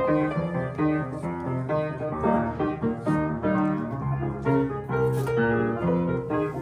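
Solo piano playing a short interlude: a flowing run of notes, a melody over lower notes and chords.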